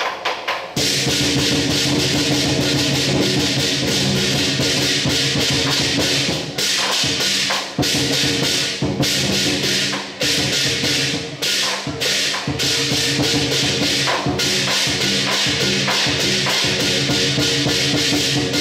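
Chinese lion dance percussion: a big drum beating rapidly under constant clashing cymbals and a ringing gong, playing without a break.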